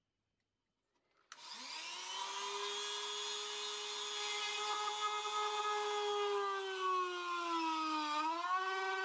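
Flex-shaft rotary tool with a carving burr starting about a second in and running with a steady high whine as it pierces a thin poplar bowl wall. The pitch sags and recovers near the end as the burr bites into the wood.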